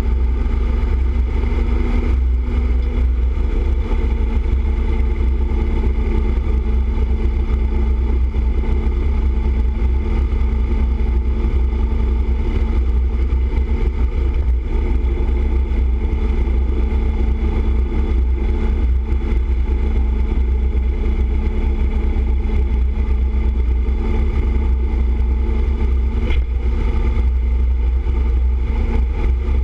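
Motorcycle cruising at steady highway speed: a constant engine drone under heavy wind rush and road rumble.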